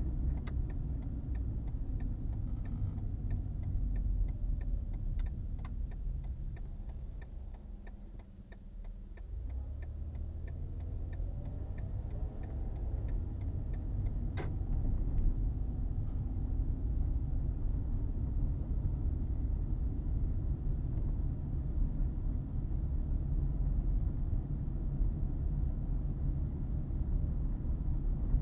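Car driving, heard from inside the cabin: steady engine and tyre rumble that dips as the car slows and then rises as it speeds up again. For the first several seconds a turn-signal indicator ticks evenly, and there is one sharp click about a third of the way through.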